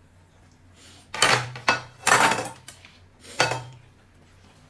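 Dishes and cutlery clattering at a meal table: several sharp knocks of bowls and utensils, beginning about a second in and ending after about two and a half seconds.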